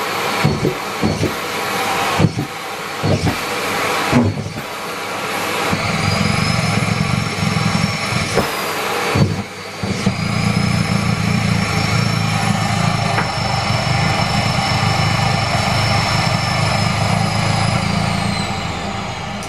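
Miele Complete C3 canister vacuum cleaner running with a steady high motor whine, with knocks and rattles in the first few seconds. The whine climbs about a third of the way in, dips briefly near the middle, then holds steady and falls in pitch near the end.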